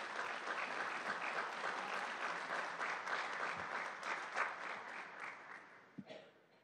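Audience applauding, the clapping gradually dying away over about five seconds. A single thump sounds near the end.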